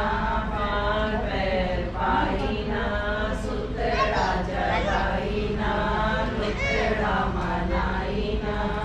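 A group of women singing a devotional chant together, the voices holding long notes that slide up and down.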